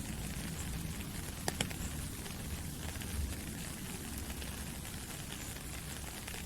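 Soft rain falling through forest trees, a steady even hiss with a low rumble beneath it. Two sharp ticks stand out about a second and a half in, and a fainter one a little later.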